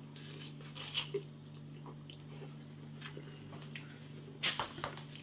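A man slurping and chewing a mouthful of instant rice noodles: a short slurp about a second in, then faint wet chewing and mouth clicks, with a few louder ones near the end, over a steady low hum.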